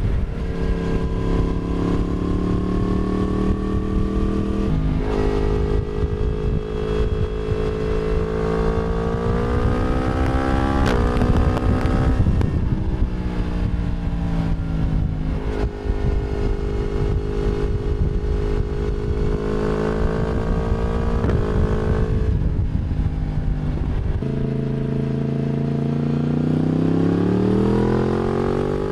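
Yamaha MT-10's crossplane inline-four running through an Akrapovic slip-on exhaust, heard from the back of the bike while riding. The revs hold fairly steady through long stretches, with a few breaks and small steps in pitch. In the last few seconds they drop, then climb steadily under acceleration.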